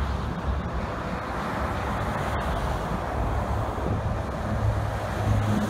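Steady freeway traffic: tyre and engine noise from cars driving past below. A low, steady hum grows louder near the end.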